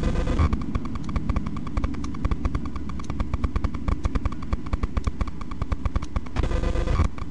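Military convoy trucks passing on a road, a steady engine and tyre rumble with a louder rush as a vehicle goes by near the start and again about six and a half seconds in. A rapid regular ticking, about five a second, runs under it.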